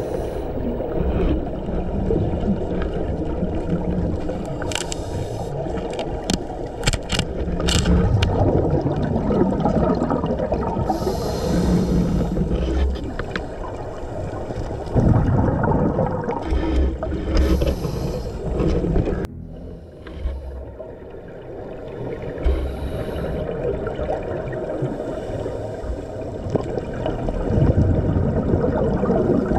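Underwater recording of scuba divers' regulators, with exhaled bubbles rushing out in a few hissing bursts over a steady low rumble. A handful of sharp clicks come in the first third, and the sound changes abruptly just past halfway.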